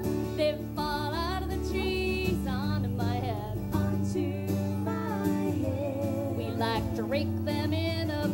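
Live children's song: women singing over strummed acoustic guitar and electric guitar.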